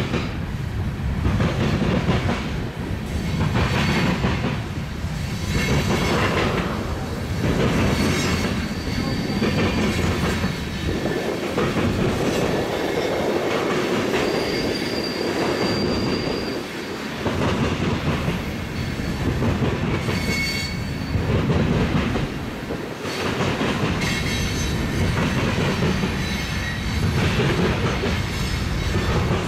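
Freight cars of a CN tank train rolling past, wheels clacking over the rails and the diamond crossing in a repeating rhythm over a steady rumble. A brief high wheel squeal sounds about halfway through and again a few seconds later.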